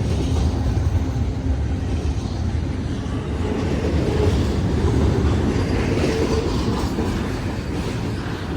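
Freight train cars rolling past, a steady rumble with wheels clacking over the rail joints.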